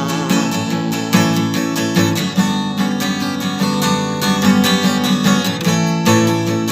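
Acoustic guitar strummed in a steady rhythm: an instrumental passage of a song with no singing.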